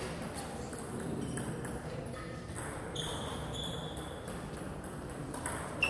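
Table tennis balls ticking on table tops and bats in a sports hall: light, irregular clicks, with a short high squeak about three seconds in.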